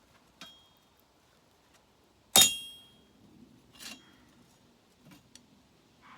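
Metal clinking in a workshop: a hard metal knock with a short bright ring about two and a half seconds in, the loudest, with a lighter ringing clink before it, another just after, and a few faint clicks near the end.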